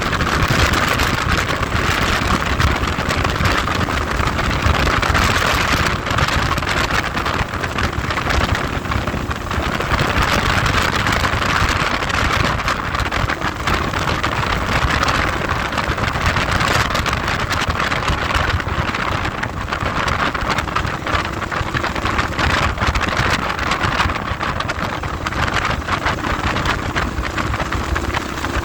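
Heavy wind noise buffeting the microphone on a moving motorcycle, a steady rough rushing that covers the engine and tyre sound beneath.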